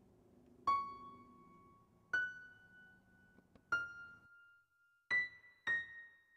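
Background music: a piano playing five slow, single high notes, each struck and left to ring out, over a soft low drone that fades away a little past the middle.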